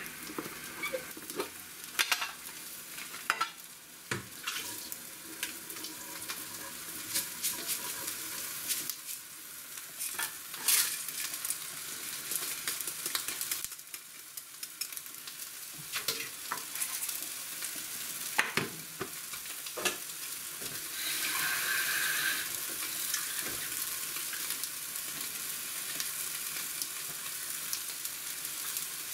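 Scattered clinks, taps and gritty rustling from handling washed rice, a wire-mesh strainer and an aluminium mess tin during cooking prep, with a steadier hiss lasting a couple of seconds about two-thirds of the way through.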